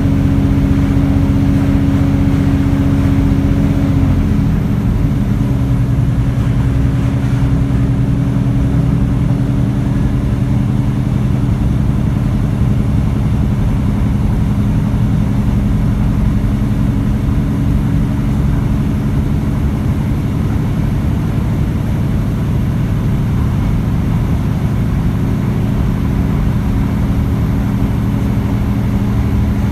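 Inside a British Rail Class 150 Sprinter diesel multiple unit under way: the underfloor Cummins diesel engine drones under load over the rumble of the wheels on the track. Its note drops sharply about four seconds in, holds steady at the lower pitch, and changes again near the end.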